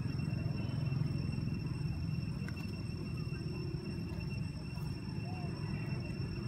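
Outdoor ambience: a steady low rumble under a continuous high-pitched insect drone of several even tones. A faint short squeak comes about five seconds in.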